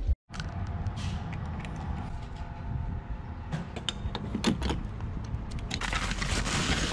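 Sharp clicks and creaks of a vehicle's fuel door being handled and opened, over a steady low hum. A broad rushing noise comes in near the end.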